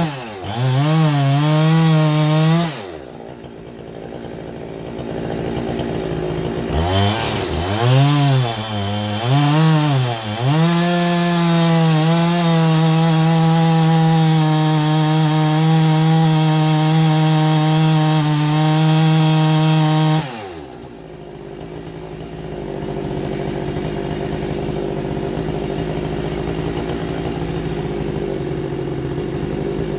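Chainsaw revving: the throttle is blipped a few times, then held at full speed for about ten seconds before the engine winds down about twenty seconds in. A steady hiss-like noise follows.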